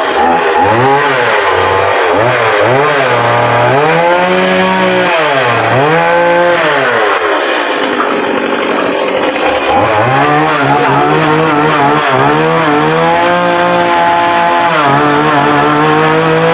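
Stihl MS 170 two-stroke chainsaw engine being revved: its speed rises and falls in quick blips through the first half, then is held high and fairly steady through the second half.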